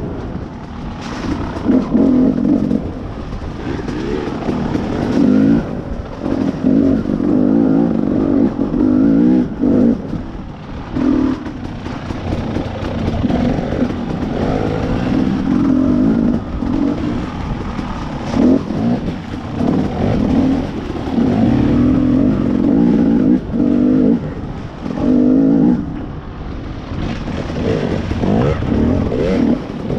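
Two-stroke dirt bike engine revving up and dropping back over and over as the throttle is opened and closed.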